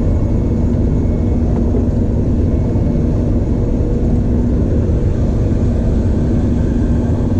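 Steady, loud low rumble of machinery with a constant droning hum, engine-like, continuing without change.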